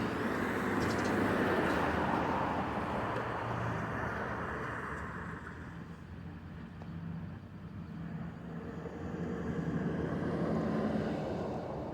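Passing road traffic: a car's tyre and engine noise swells and fades over the first half, and a second vehicle builds up again near the end.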